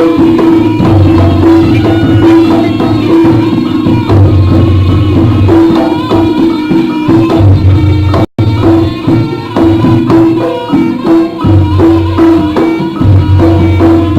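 Live jaranan music from an East Javanese gamelan-style ensemble: drums and tuned percussion playing a steady, busy rhythm. The sound drops out for a split second about eight seconds in.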